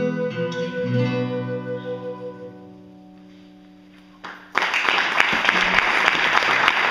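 Transverse flute and acoustic guitar play the closing notes of a folk song, the final chord ringing and fading away. About two-thirds of the way through, an audience breaks into applause.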